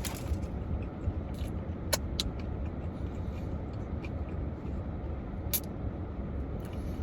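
A man chewing a mouthful of chicken sandwich, with a few faint wet clicks, over a steady low background rumble.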